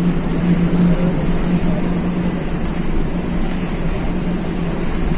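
Bus engine running steadily, heard from inside the passenger cabin: a loud steady drone with low rumble and road noise.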